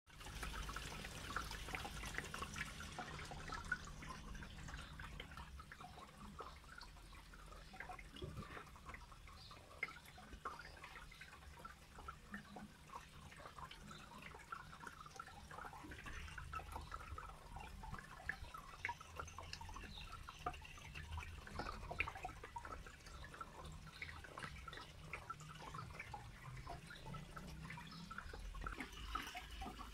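Faint water sounds in an aquarium: many small drips and bubble pops at the water surface, over a low steady hum.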